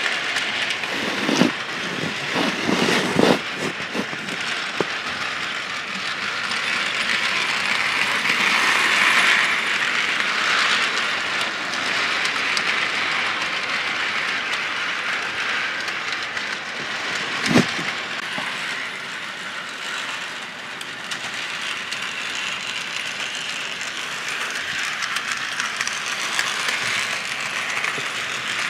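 HO scale model train with an Illinois Central 2-8-2 steam locomotive running on the track: a steady mechanical rattle of the motor, gears and wheels. It swells about a third of the way in, with a few sharp clicks in the first few seconds and one more near the middle.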